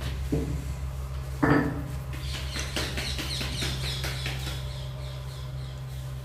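Palms patting a ball of puri dough flat by hand: a quick run of soft slaps, a few each second, following a single knock about a second and a half in. A steady low hum runs underneath.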